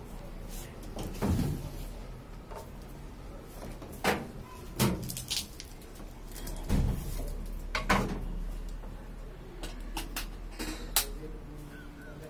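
A series of sharp, irregular knocks and clunks, about eight over the stretch, as of hard objects being handled or set down, over a low steady hum.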